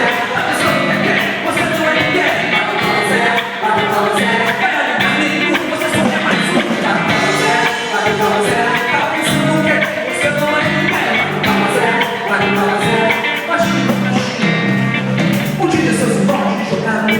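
Live worship band playing with a singer, drums keeping a steady beat, loud and full.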